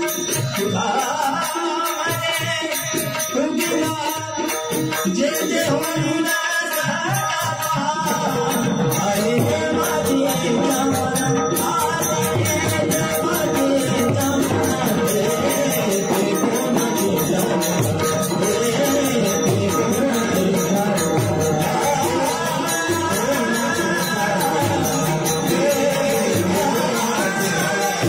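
Marathi chakri bhajan: voices singing a devotional chant over steadily clashing percussion, growing fuller from about eight seconds in.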